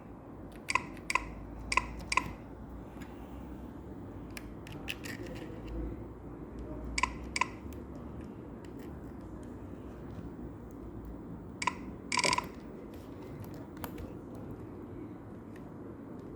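Sharp plastic clicks from a Keychron K7 low-profile keyboard being handled or its keys pressed: four near the start, a pair about seven seconds in, then a single click and a short rattle about twelve seconds in, over a steady low hum.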